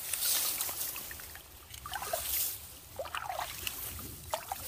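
Repeated swishes of a person pushing a way through waterside vegetation and shallow water: the loudest near the start and about two seconds in, with a few short chirps between them.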